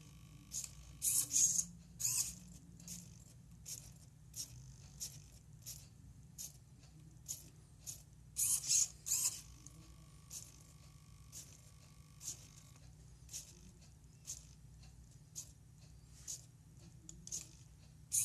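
Arduino-controlled drawing robot moving its pen to draw a tic-tac-toe grid on paper: irregular mechanical clicks and ticks from its mechanism, with louder clusters about a second in and again around eight to nine seconds, over a faint steady hum.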